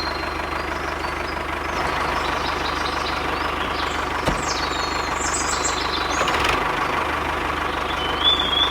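A small motor running steadily with a fast, even buzz, with a few short high chirps over it.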